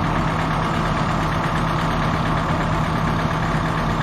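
A large engine idling steadily with a constant low tone and no change in speed.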